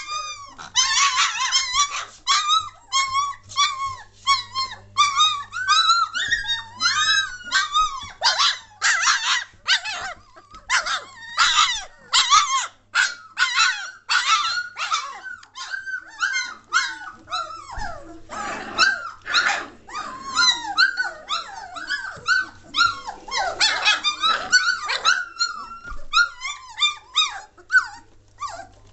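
A litter of three-week-old German Shorthaired Pointer puppies yipping, whining and squealing without pause, many short high-pitched calls overlapping.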